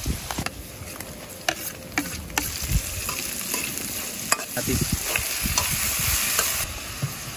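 Garlic, onion and then tomato sizzling in hot oil in a steel wok, with a metal ladle clinking and scraping against the pan as they are stirred. The sizzle grows louder partway through as more vegetables go in.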